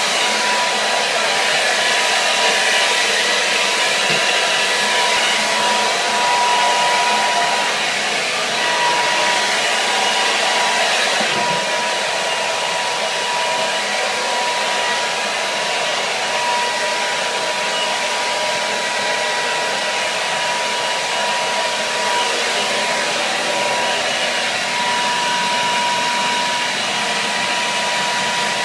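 Hair dryer running steadily: an even rush of blown air with a thin, steady motor whine over it.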